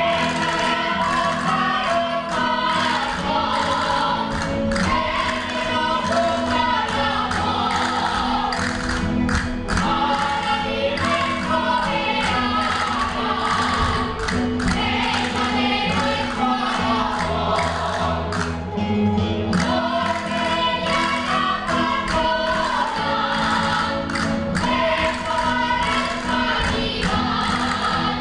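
Live Aragonese bolero. A group of voices sings over a band of plucked string instruments, with castanets clicking in rhythm throughout.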